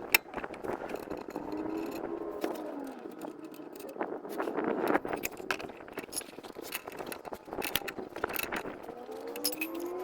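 Metallic clinks and rattles of hand tools and steel suspension parts being handled, with a motor vehicle running and rising in pitch near the end.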